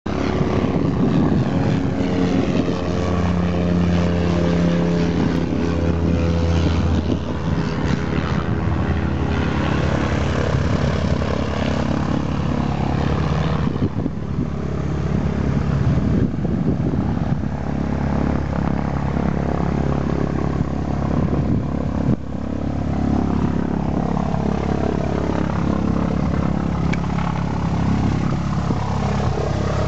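Light propeller aircraft's piston engine running steadily, with a strong low hum that is loudest in the first several seconds and dips briefly twice later.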